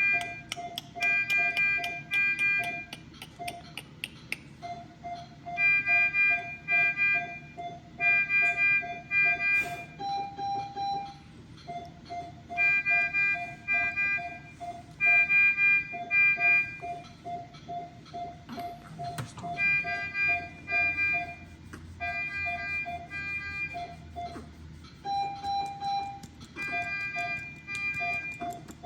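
Electronic alarm beeping. A short tone pulses about three times a second, and over it a higher beeping tone comes in repeated bursts about a second long with brief gaps between them.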